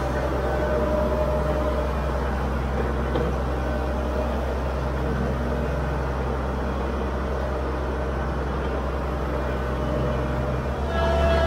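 Kubota compact tractor's diesel engine running steadily, with its mid-mount mower deck spinning and cutting grass.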